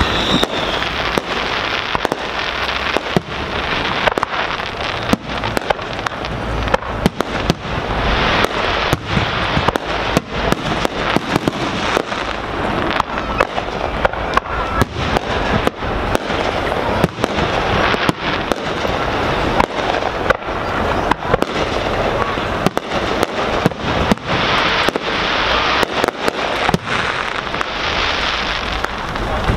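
Aerial firework shells bursting overhead in quick succession: a dense, unbroken string of sharp bangs.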